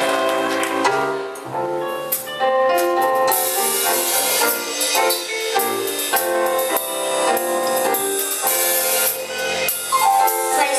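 Live gospel band playing an instrumental introduction: keyboard chords with a drum kit, the drums and cymbals coming in fuller about three seconds in.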